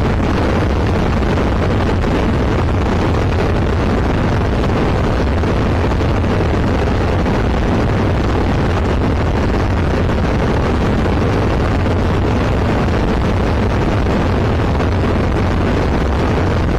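Zenith CH701 light aircraft's engine and propeller droning steadily in cruise flight, heard inside the cockpit with wind noise.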